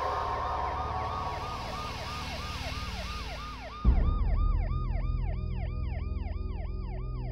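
Police siren wailing in a fast yelp, its pitch rising and falling about three times a second. About four seconds in a sudden loud low thump is heard, and a steady low rumble continues under the siren.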